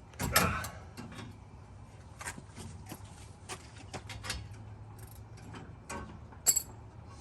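Metal hand tools clinking and knocking: an irregular series of sharp clicks, with a louder knock near the start and a louder ringing clink about six and a half seconds in.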